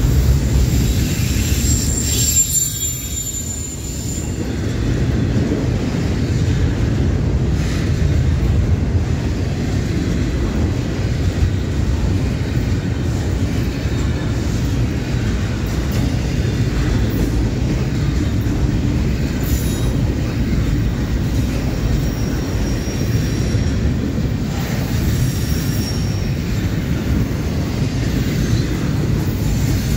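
Double-stack intermodal container train rolling past on well cars: a steady rumble of steel wheels on the rails, with a few brief high-pitched wheel squeals.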